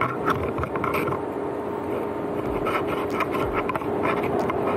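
Ford Bronco driving over rough ground: a steady engine hum under constant rattling, creaking and knocking of the vehicle over the terrain.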